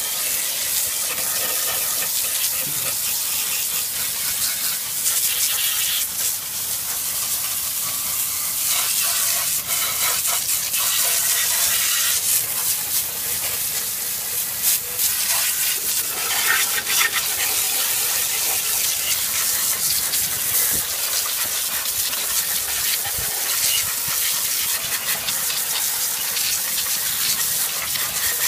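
A strong spray of water blasting against a Honda push lawn mower as it is washed out. It makes a steady, hissing rush that flickers as the spray moves over the metal.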